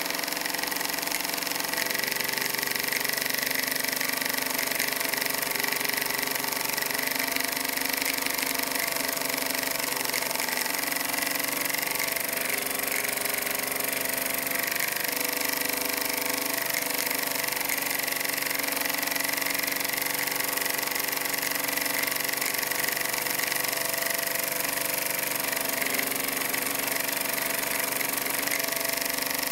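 Bowman PW201 model stationary steam engine running steadily on live steam, a constant mechanical run with an even steam hiss over it.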